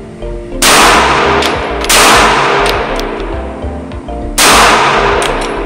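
Three shots from a CZ P10C striker-fired pistol, the second about a second and a quarter after the first and the third about two and a half seconds later, each followed by a short echo off the indoor range. Background music plays beneath.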